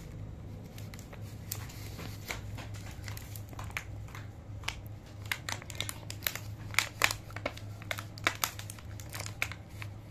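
Thin clear plastic food container crinkling and clicking irregularly as small fingers press and pry at its lid, trying to open it, over a steady low hum.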